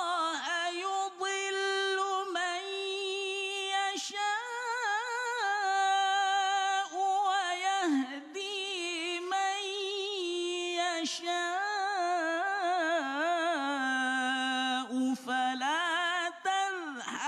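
Male qari reciting the Qur'an in the melodic competition style of tilawah: long held vowels decorated with rapid quavering ornaments, on a high pitch that sinks lower about halfway through and again near the end, with only short breaths between phrases.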